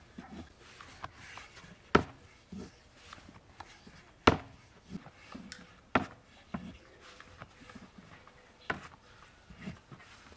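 Thin wooden rolling stick knocking against a wooden board as lavash dough is rolled out: four sharp wooden knocks about two seconds apart, with softer knocks and rubbing between.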